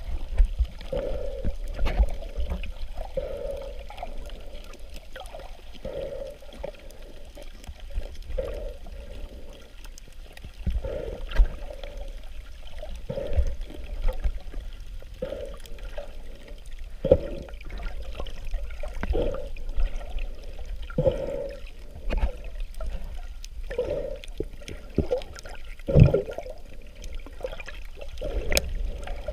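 Muffled water noise picked up by a camera held underwater: a steady low rumble with sloshing pulses every second or two, and a sharper knock about 26 seconds in.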